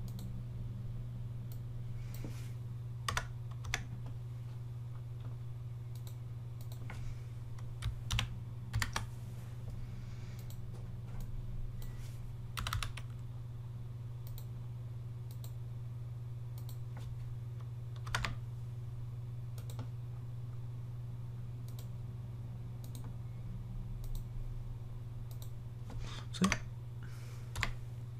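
Sparse, irregular clicks of a computer keyboard and mouse, a dozen or so scattered keystrokes and clicks with the loudest pair near the end, over a steady low hum.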